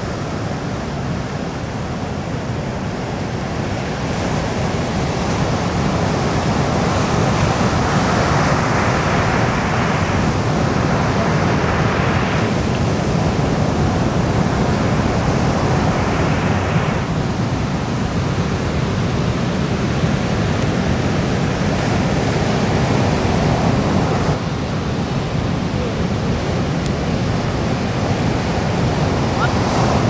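Ocean surf breaking on a sandy beach: a continuous rushing wash of waves, swelling louder several times as sets break.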